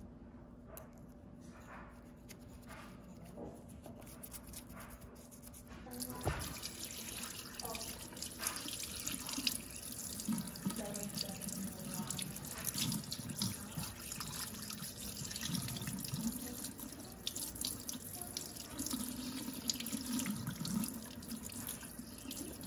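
Small paintbrush scrubbing a model locomotive chassis with dish soap. About six seconds in, a tap turns on and water runs steadily into a sink while the part is scrubbed under the stream.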